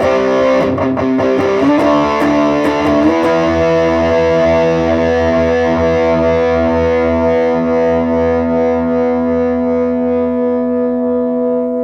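Distorted electric guitar played through a Positive Grid Reactor 50 combo amp: a few quick power chords, then one chord held for about eight seconds, slowly fading as the noise gate's long decay comes in.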